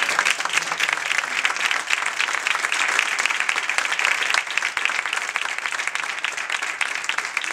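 An audience and the performers on stage applauding: dense, steady clapping that keeps an even level throughout.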